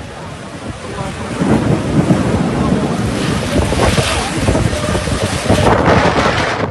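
Thunder rumbling. It builds about a second and a half in and rolls on loudly with a crackling edge.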